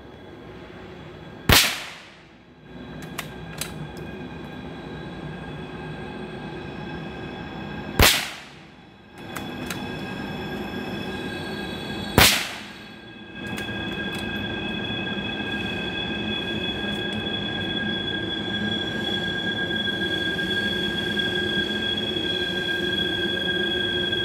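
Three .22 LR rifle shots, single sharp cracks about a second and a half, eight and twelve seconds in. Behind them a distant train's wheels squeal steadily on several high held tones, growing louder after the third shot.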